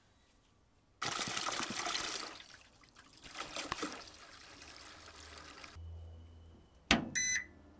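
Liquid poured into a stainless steel ultrasonic cleaner tank, splashing loudly at first and then tapering off to a trickle. Near the end, the sharp click of the unit's rocker power switch and a short electronic beep as the cleaner powers on.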